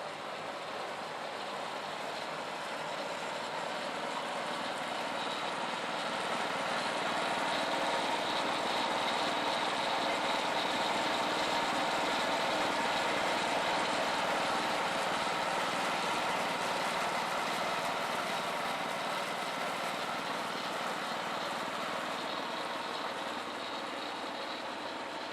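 Mahindra 3015 tractor running a Schulte 6200 rear-mount PTO snowblower, with the added Lifan gear-reduction engine driving the upper drift-cutting auger: a steady mechanical din. It grows louder toward the middle and eases off near the end.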